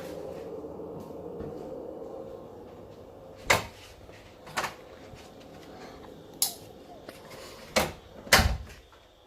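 A handful of sharp knocks and clicks, about five spread over several seconds, the loudest a heavier thump near the end.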